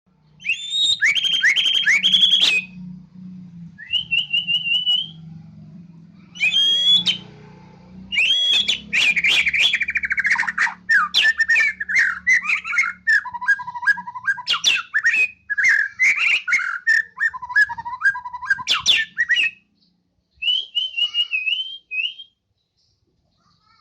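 White-rumped shama singing a long, loud, varied song of rich whistles, quick trills and harsh notes, in short phrases at first and then almost without pause, ending with one last short phrase. A faint low hum runs underneath for most of it.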